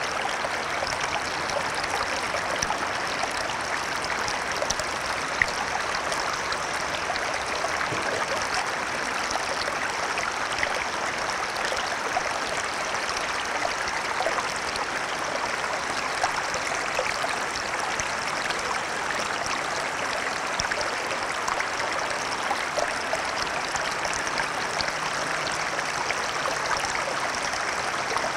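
Shallow section of a small stream running: a steady babble of water, dotted with many small splashing and trickling ticks.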